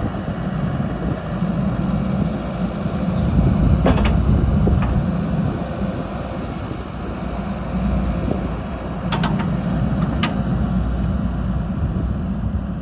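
2019 Wacker Neuson ET145 excavator's diesel engine running as the boom, arm and bucket are worked hydraulically, its sound swelling and easing with the movements. A few short clicks sound through it.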